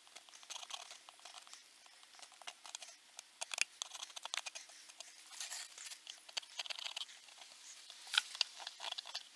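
Steel chisel scraping hardened old glue off a wooden chair tenon: an irregular run of short, dry scratching clicks as the glue flakes away, in denser spells about three to four, five to six and eight seconds in.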